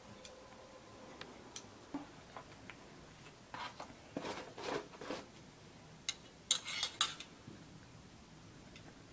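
Light clicks with two short clusters of metallic clinking and scraping, about four seconds in and again, louder, near seven seconds. These come from handling the hand-forged nakwha burning irons, which are heated in a charcoal brazier.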